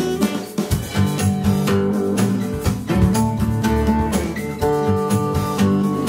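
Background music with a plucked acoustic guitar and steady strummed strokes.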